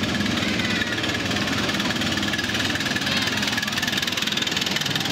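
Live-steam miniature locomotive running past as it hauls its passenger train, its exhaust beats coming rapid and even.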